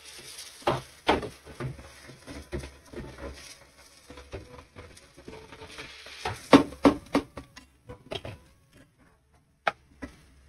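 A wooden spatula stirring and scraping chicken and onions in a pot, with irregular knocks and scrapes against the pan. The loudest cluster of knocks comes about six and a half seconds in, and there is one sharp knock near the end.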